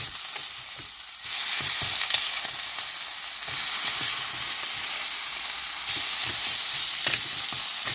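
Rava and raw papaya roti batter sizzling in ghee on a hot pan: a steady frying hiss that dips briefly about a second in.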